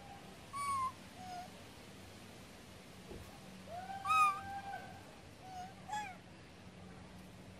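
Young long-tailed macaques giving high, clear coo calls: several short ones and one longer held call about four seconds in, which is the loudest.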